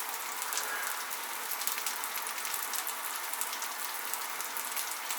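Mici (Romanian minced-meat kebabs) sizzling and crackling on a grill rack straight from under the oven grill. The sound is a steady fine hiss full of small pops.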